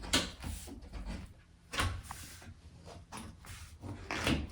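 Plastic shower-door seal being pushed along the edge of a glass panel that is wet with glass cleaner: a few irregular soft knocks and rubbing sounds, the loudest near the start, just before two seconds in, and near the end.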